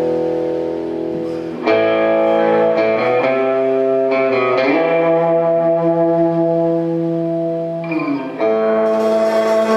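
Electric guitar ringing out slow, sustained chords, a new chord struck every few seconds.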